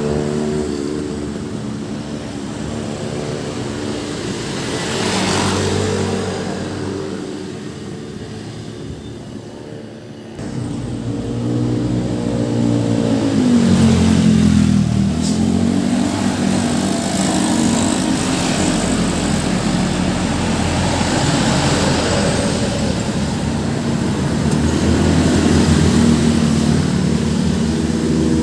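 Road traffic: engines of passing vehicles running, with one heavier engine dropping and rising in pitch about halfway through. The sound jumps suddenly louder about ten seconds in.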